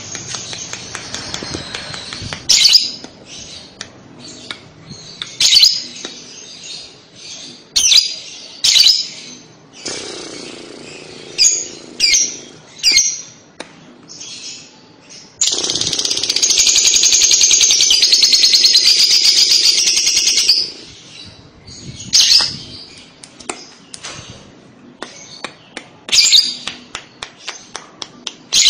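Female lovebird calling: loud, sharp high-pitched chirps in short runs, and about fifteen seconds in a fast continuous chatter lasting about five seconds, the long trill fanciers call 'ngekek'.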